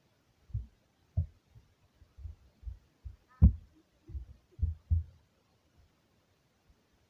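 A run of about a dozen irregular dull low thumps and knocks, the loudest one about three and a half seconds in, then quiet.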